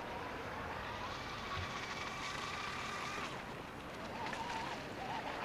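Radio-controlled model powerboat's motor whining at speed over the hiss of its wake. The pitch rises slightly about a second in, drops away after about three seconds, then wavers as the boat turns.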